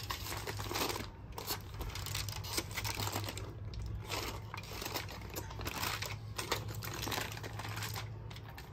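Aluminum foil crinkling and rustling in irregular bursts as hands roll and press a ground-meat log wrapped in it.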